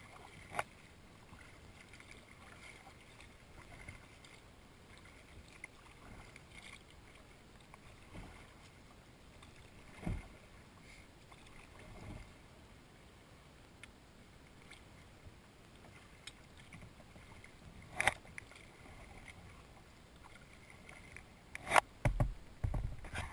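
Kayak paddling on calm water: quiet paddle strokes and dripping, with a few soft knocks spread out and a cluster of sharper knocks near the end.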